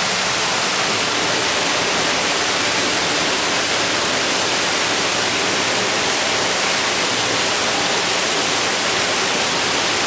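Water pouring down a drop, a small waterfall, inside an underground concrete storm-drain collector: a steady, loud rush of falling water.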